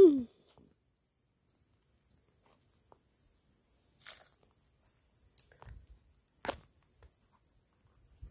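Mostly quiet, with a faint steady high-pitched tone throughout and three short clicks spread through the second half.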